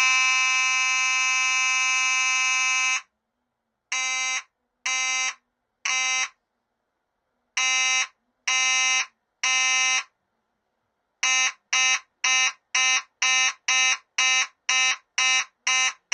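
Simplex 2901-9838 fire alarm horn sounding, run from a bench power supply. It holds one steady tone for about three seconds, then sounds three short blasts, three longer blasts, and from about eleven seconds in a fast run of about two blasts a second.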